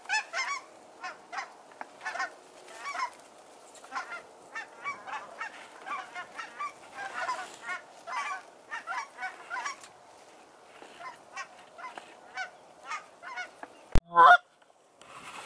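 Canada geese honking in flight, many calls overlapping at first and then thinning to scattered honks. Near the end a sharp click, then one loud, close call and a moment of silence.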